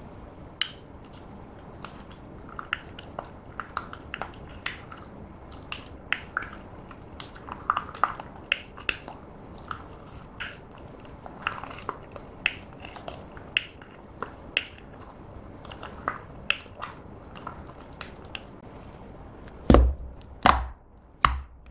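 Clear slime with chunks of lipstick being stirred with a spoon in a glass bowl: a steady run of small, irregular sticky clicks and squelches. Near the end, fingers press into the mixed red slime, giving three loud pops.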